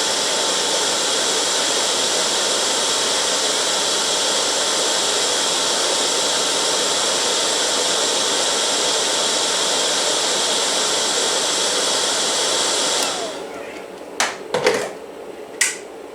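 UV curing light gun with its cooling fan running steadily as it cures the adhesive on the bead, with a motor whine. It switches off about 13 seconds in and the whine falls away, followed by a few sharp clicks of handling.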